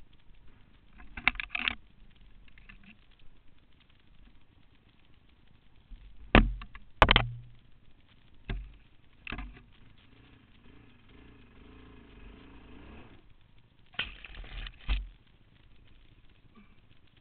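Scattered knocks and clattering thumps as an ATV and the rider's camera jolt over rough, muddy ground. The loudest hits come in a cluster about six to seven seconds in, with more around nine seconds and again near fourteen to fifteen seconds. In between there is only a faint low hum.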